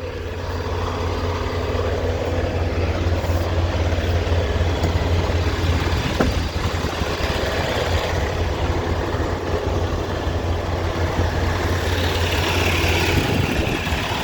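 Freightliner Cascadia semi truck's diesel engine idling steadily with a low hum, growing louder over the first couple of seconds. A single click about six seconds in.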